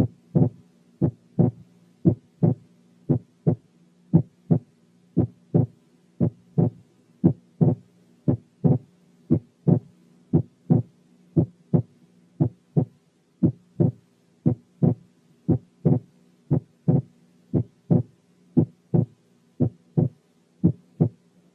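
Recorded heart sounds with the breath sounds filtered out: a regular lub-dub rhythm of short beats. It demonstrates normal physiological splitting of the second heart sound, which splits into two components on inspiration and goes back to single on expiration.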